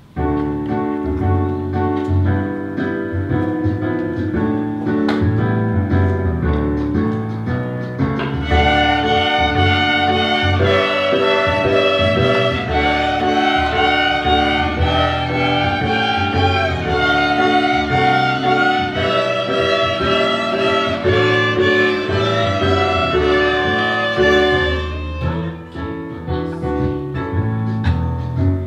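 A children's string ensemble playing a piece together on bowed strings, violins to the fore. About eight seconds in, higher parts come in and the playing grows louder.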